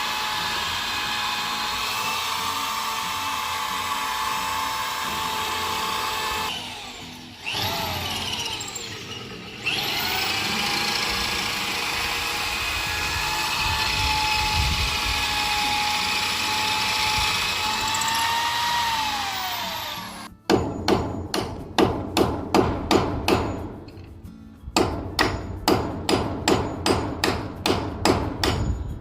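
A power tool motor, a drill by the sound of it, runs at a steady whine, spinning up and down around a short stop and winding down at about 20 s. Then come quick, even hammer blows, about two or three a second, with a brief pause in the middle.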